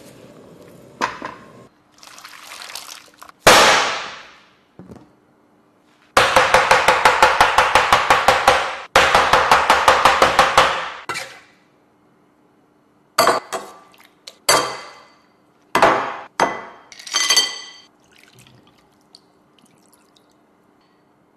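A kitchen knife chopping fast on a cutting board, about five strikes a second for roughly five seconds, cutting a slab of set jasmine tea jelly into cubes. Around it are a single loud knock a few seconds in and several sharp clinks later, one of them ringing.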